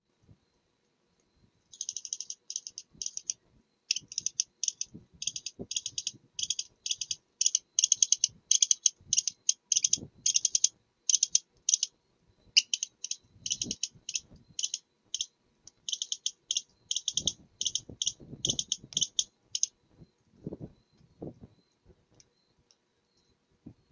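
Fox calling in long runs of rapid, high-pitched chittering pulses, a few clusters a second, which stop a few seconds before the end. Soft low thumps and rustles sound underneath.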